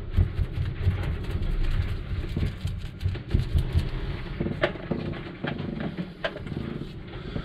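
Paintbrush dabbing epoxy resin into fibreglass chopped strand mat, with a low steady rumble underneath. A few sharp taps come about halfway through and again near the end as the brush knocks against a plastic mixing cup.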